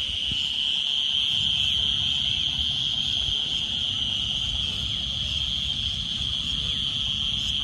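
Dense insect chorus of the evening fields: a steady, unbroken high-pitched shrilling, over a low rumble.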